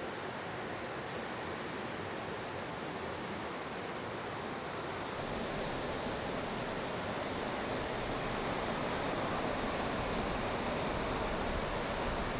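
Ocean surf breaking and washing in, a steady rushing hiss that grows a little louder and fuller about five seconds in.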